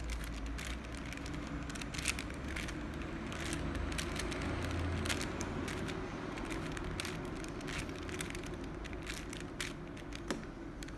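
Clicking and clacking of a 5x5 Rubik's cube's plastic layers as they are turned quickly, a fast irregular run of clicks over a steady low hum.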